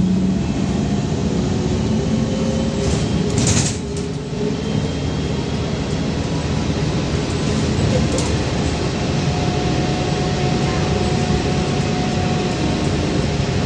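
Cabin noise of a VMZ-5298.01 trolleybus driving along: steady road and running noise with faint thin whining tones in it. A short hiss about three and a half seconds in.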